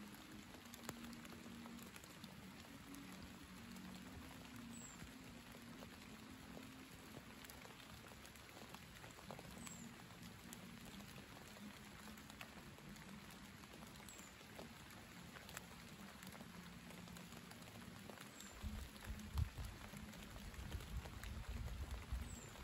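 Light rain pattering faintly, with scattered individual drop ticks. From about three-quarters of the way through, gusts of wind buffet the microphone in uneven low rumbles.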